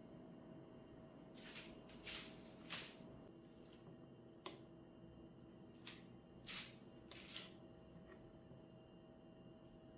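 Faint handling of a glass jar of pickled red onions: about eight brief clicks and soft wet squishes as the lid comes off and brined onion rings are lifted out with a utensil and laid on a ceramic plate.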